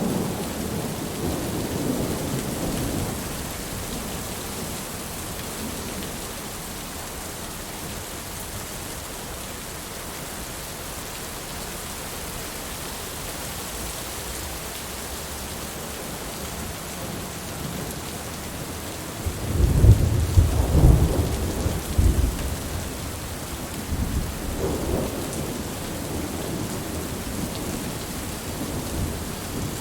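Steady rain with rolling thunder. A low rumble fades over the first few seconds, and the loudest, deepest roll of thunder comes about two-thirds of the way through, followed by lighter rumbles.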